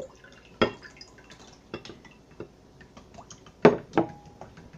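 A thick pink glue mixture poured into a glass bowl of borax water, dripping and splatting, then a spoon knocking against the glass bowl as it starts to be stirred. The loudest knocks come about three and a half to four seconds in.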